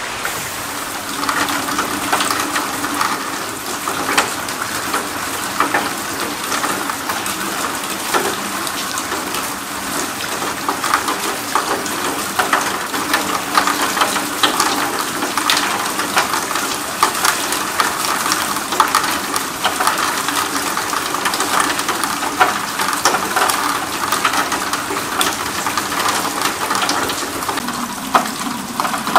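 Steady rain falling on wet ground and puddles, with many sharp drop hits.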